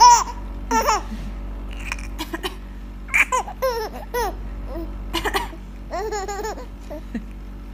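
Baby laughing: short bursts of high-pitched giggles with pauses between them.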